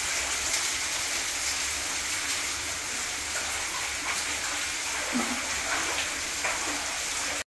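Steady rushing hiss of running water, which cuts off abruptly near the end.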